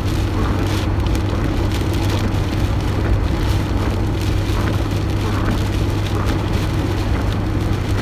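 Steady car-cabin noise from a moving car, engine and road hum, with rain and gusting wind hitting the car body as light, irregular pattering.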